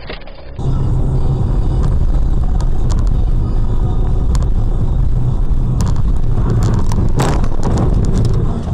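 Car engine and road rumble heard from inside a moving car, steady and low, with a few sharp knocks. The loudest knock comes about seven seconds in.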